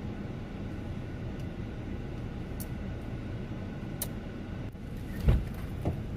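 Steady low rumble of a car's engine idling, heard from inside the cabin, with a couple of faint clicks and a dull thump about five seconds in.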